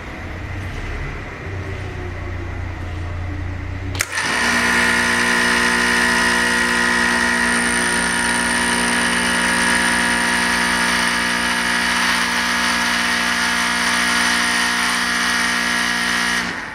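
Greenlee 960 hydraulic power pump's 1.5-horsepower electric motor running. For about four seconds it runs noisily over a low hum. Then there is a sharp click and a steady high machine whine, which cuts off just before the end.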